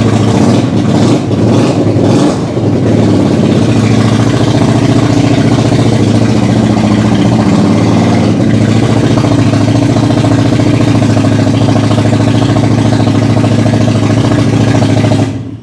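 Suzuki VL250 Intruder's 250 cc V-twin running, blipped a few times early on and then idling steadily. It cuts out near the end as the kickstand is lowered: the side-stand safety switch is killing the engine.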